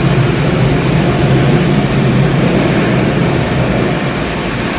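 Automatic car wash air dryer blowers running, a loud steady rush of air over a low hum. A faint high whine comes in about three seconds in.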